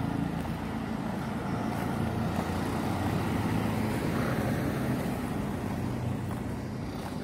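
Steady street traffic noise with the low drone of a vehicle engine, swelling slightly and easing off toward the end.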